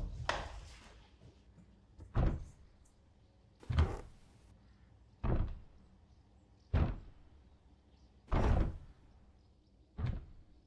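A slow series of six heavy thuds, evenly spaced about one every second and a half.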